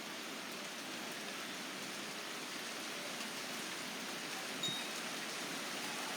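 Rain beginning to fall at the start of a thunderstorm: a steady, even hiss of light rain on surfaces, with one small knock a little past halfway.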